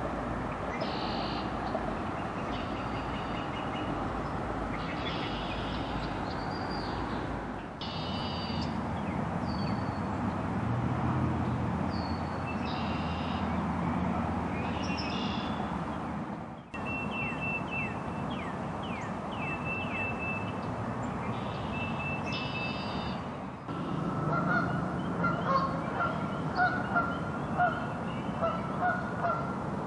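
Outdoor pond ambience: songbirds calling over a steady low background rumble, the background changing abruptly at each edit. In the last several seconds a run of repeated honking calls joins in.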